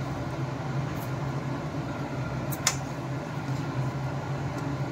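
Steady low mechanical hum, like a fan or motor running, with one sharp click about two and a half seconds in.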